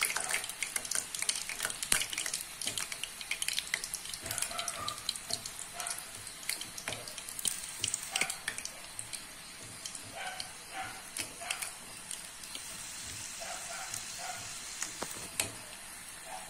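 Anoda mal, flour-dough pastries, deep-frying in hot oil on medium heat until golden, sizzling with dense crackling pops over a steady hiss. The popping thins out somewhat in the second half.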